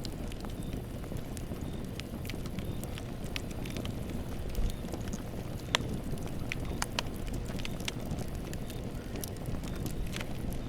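Campfire burning: a steady low rumble of flames with sharp crackles and pops from the burning wood, a couple of them louder about halfway through.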